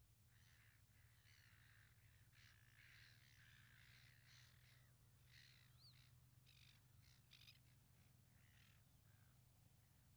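Faint, harsh bird calls repeated many times in quick succession, with one short rising whistle about six seconds in, over a low steady hum.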